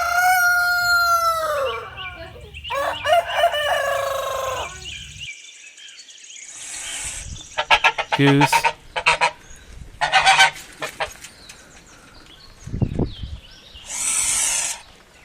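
A rooster crowing, a long pitched cock-a-doodle-doo followed by a second call a second later; after a short gap, geese honking in short sharp calls.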